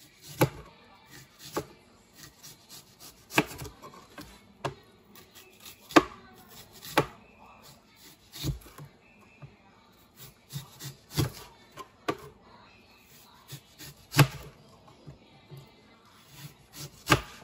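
Knife slicing an onion into thin rings on a plastic cutting board: each stroke ends in a sharp tap of the blade on the board, at an uneven pace of roughly one a second, a few taps much louder than the rest.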